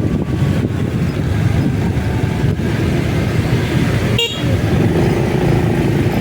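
Steady rumble of a motorcycle ride at speed, engine and wind noise on the microphone, with a brief high-pitched horn-like toot about four seconds in.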